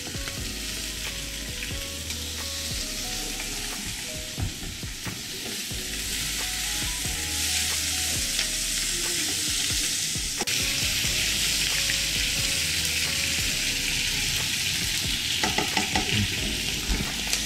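Sliced bell pepper, onion and ginger sizzling in hot oil in a pan on a gas burner as they are sautéed for a sweet-and-sour sauce, stirred with a ladle that clicks now and then against the pan. The sizzle grows louder about seven seconds in.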